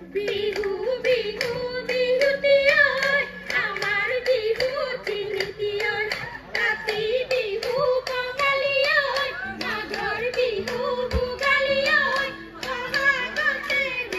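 A woman singing a Bihu song live through the stage PA, her pitch bending and ornamented, over a quick, steady beat of sharp percussive strokes.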